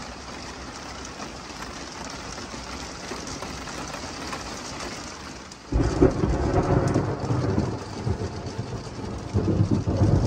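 Monsoon rain falling steadily, then about six seconds in a sudden loud crack of thunder from a nearby lightning strike that rolls on as a deep rumble, swelling again near the end.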